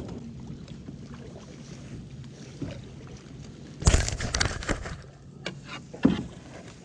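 Kayak being paddled: low water and hull noise, with a cluster of sharp knocks and splashes from the paddle about four seconds in and another about six seconds in.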